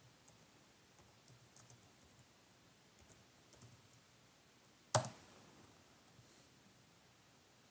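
Faint scattered small clicks, then a single sharp click or knock about five seconds in that dies away quickly.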